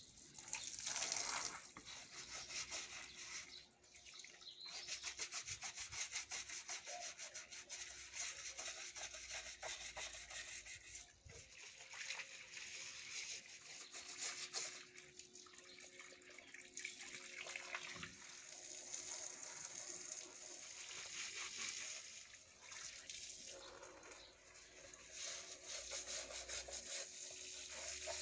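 A stiff brush scrubbing a wet surface, a continuous rapid rubbing with water.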